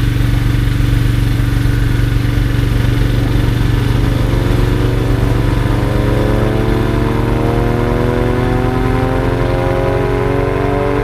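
Vintage WWII air-raid siren winding up. Its wail starts rising in pitch about three seconds in and keeps climbing, over a steady low drone.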